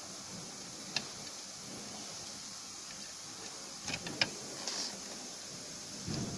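A few light clicks and taps from small parts being handled, once about a second in and in a quick cluster around four seconds in, over a steady hiss.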